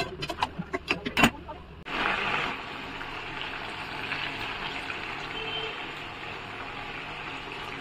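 Metal spatula scraping and knocking against a metal kadai while chicken curry is stirred. After about two seconds this gives way to a steady sizzle of the thick chicken curry frying in the pan.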